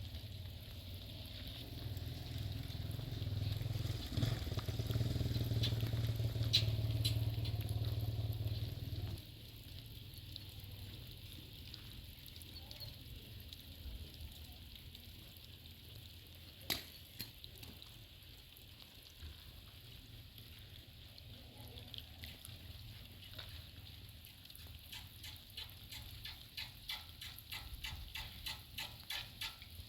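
Steady hiss of rain, with a low mechanical hum for the first nine seconds that cuts off suddenly. About halfway through there is one sharp click, and a run of quick ticks near the end.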